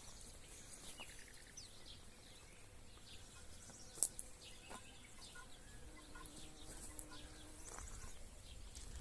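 Faint outdoor ambience with scattered small-bird chirps and a single sharp click about four seconds in.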